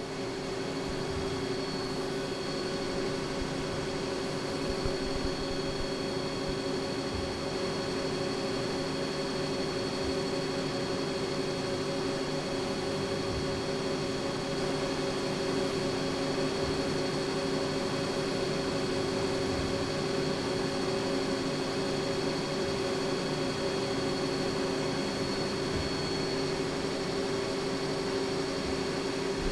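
CNC milling machine running, its spindle driving an end mill through aluminum: a steady hum with a thin high-pitched tone above it.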